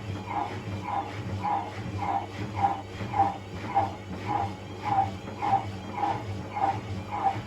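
Rubber door seal of an Indesit Moon SIXL145 washing machine squeaking in a steady rhythm, a little under twice a second, against the drum's low hum as it turns. The squeak comes from the door seal rubbing.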